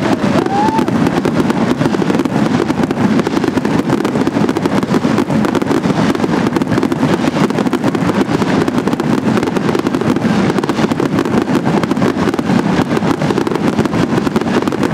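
Fireworks display, with ground fountains and aerial shells going off together in a dense, unbroken crackle of pops.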